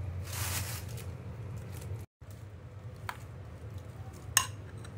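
Hands rubbing a wet spice marinade into whole fish, giving soft squishing sounds over a steady low hum. After a short break, a plastic bag rustles and a metal spoon gives two light clicks, the second and louder one near the end.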